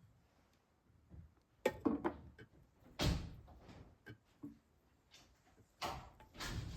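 Hard plastic plumbing parts and a primer can being handled: a few sharp knocks and short scrapes, the loudest about three seconds in and again near the end.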